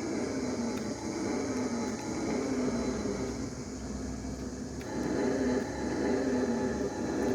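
Toy remote-control car's electric drive motor and gears whirring as it drives, the pitch wavering with speed; it gets louder about five seconds in.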